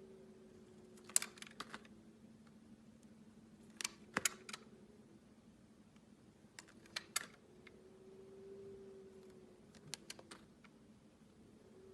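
A knife cutting through a block of clear soap: clusters of short, crisp clicks and cracks, four times, over a faint steady hum.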